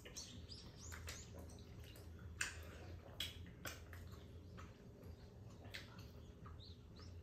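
Faint, scattered clicks and taps of thin metal chopsticks against a pan and dishes, over a steady low hum.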